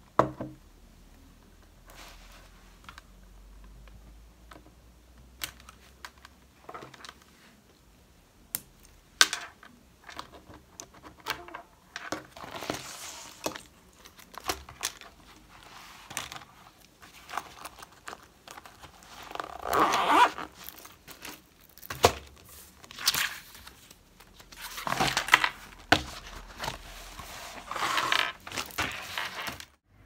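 Small objects handled on a desk: scattered clicks and taps, with several longer bursts of crinkling from a shiny plastic pouch being handled.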